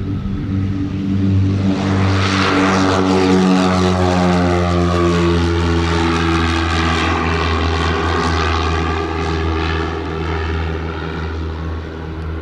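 Piper Seminole's twin four-cylinder piston engines and propellers at full takeoff power, passing close by. The sound swells about two seconds in, then its engine note slowly drops in pitch as the plane goes by and climbs away.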